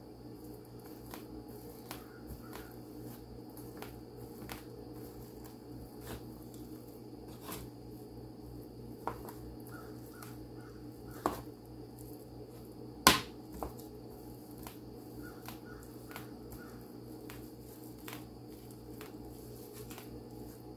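Kitchen knife chopping through shredded cooked chicken on a plastic cutting board: scattered soft taps and knocks of the blade against the board, with one sharper knock about two-thirds of the way through, over a steady background hum.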